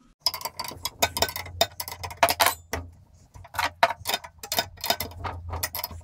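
Steel wrenches working a nut and bolt on a lawn mower jack's wheel bracket: a quick, uneven run of metal clicks and ticks as the adjustment is taken in to close the gap against the tire.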